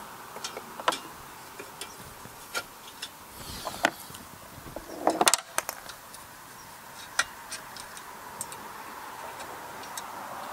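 Irregular small metallic clicks and taps as a bolt is fumbled against a mower engine's metal muffler heat shield while being started into its hole, with a denser, louder cluster of clicks about five seconds in.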